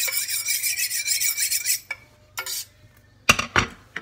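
Small kitchen knife drawn rapidly back and forth along a sharpening steel in quick, even scraping strokes that stop just under two seconds in. A few separate knocks follow, the loudest about three seconds in.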